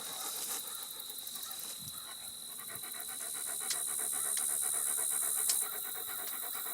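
German shepherd panting rapidly in a quick, even rhythm, with a couple of sharp clicks about midway and near the end.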